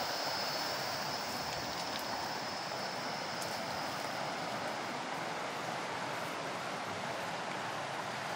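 River water rushing steadily over rocks and through shallow rapids.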